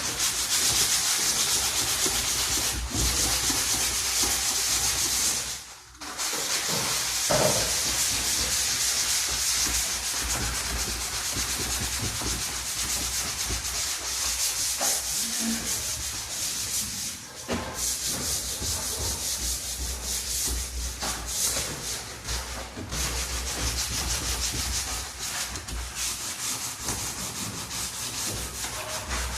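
Steady, rough scraping: a tool or abrasive rubbing back and forth over a surface. It breaks off briefly twice.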